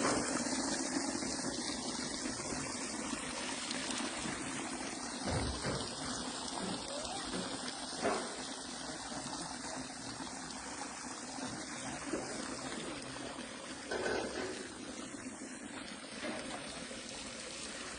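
A garden water-curtain waterfall splashing into a stream, with steady running water and a few brief louder splashes.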